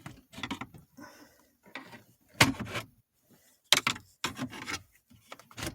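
Flathead screwdriver scraping and prying at the plastic dash trim around a car stereo, in irregular scrapes with sharp clicks. The loudest clicks come about two and a half and nearly four seconds in.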